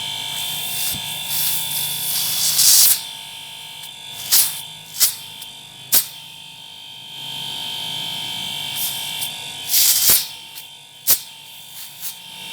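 Short sudden hissing spurts, five or so, as flushing solvent and dirt are blown out of a refrigerator's pipe, over a steady electric hum; a longer hiss runs through the first few seconds.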